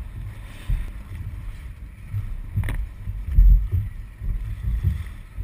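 Dragon boat paddlers stroking, with paddles dipping and splashing, under a gusty low rumble of wind on the boat-mounted camera's microphone; one sharp click about two and a half seconds in.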